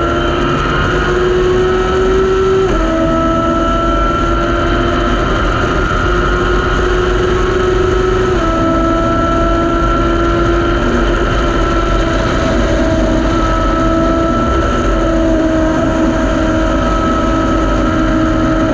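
Thunder Roadster race car's engine running hard at high revs, heard from the open cockpit under wind and road rumble. Its pitch steps down slightly twice, about three seconds and about eight seconds in, as with gear changes, then holds steady or creeps up.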